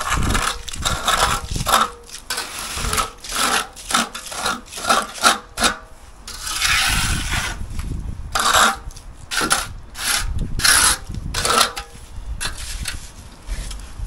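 Steel hand trowel scraping along the edge of a freshly poured concrete slab in quick repeated strokes, with one longer sweep about halfway through.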